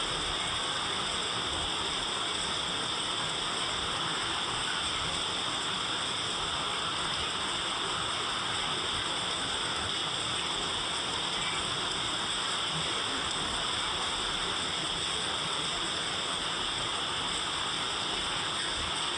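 Steady rain falling, an even, unbroken hiss with no single drops or other events standing out.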